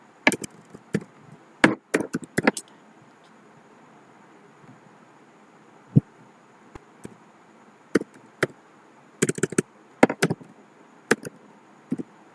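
Typing on a computer keyboard: short bursts of key clicks as code is edited, with a single lower thump about six seconds in.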